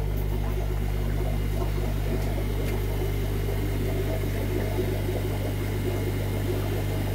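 Steady low hum of running aquarium equipment (filter pumps and aeration), even and unchanging throughout.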